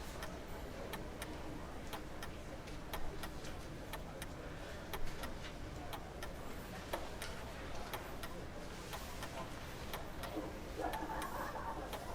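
Outdoor café ambience: many light, irregular clicks and clinks over a steady low background, with a brief voice-like murmur near the end.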